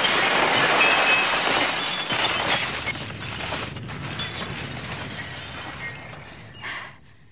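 Football stadium crowd roaring and cheering after a goal, dying away steadily to almost nothing, with a brief louder burst near the end.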